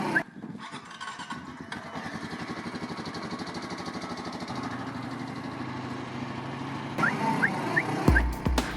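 A vehicle engine running steadily with an even, fast firing pulse, growing a little louder. About seven seconds in, music comes back in, with deep drum beats near the end.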